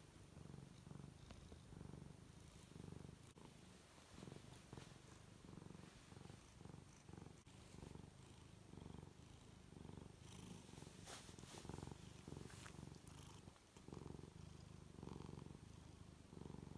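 Tuxedo cat purring softly and steadily, a low rumble in a pulsing rhythm.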